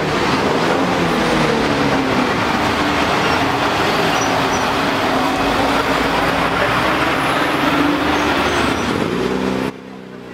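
Busy city road traffic: engines of buses and cars running and passing over steady road noise, with engine pitch rising and falling. The level drops near the end.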